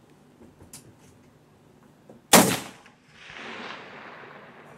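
A single rifle shot on a 300 m shooting range: one sharp crack that rings briefly, followed by a softer noise that swells and fades over about a second and a half.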